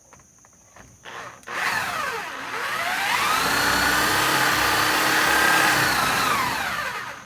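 Electric drill boring deeper into a laminated mahogany block: the motor speeds up about a second and a half in, runs steady for a few seconds, then winds down and stops.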